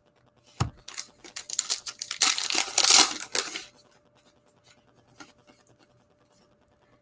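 Trading cards being handled and slid against one another: a short knock under a second in, then about three seconds of scraping and rustling that stops near the middle.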